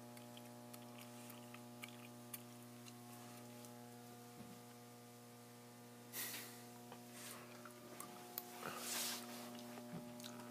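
Faint steady electrical hum, like mains hum, with scattered small clicks and two brief rustling swells about six and nine seconds in.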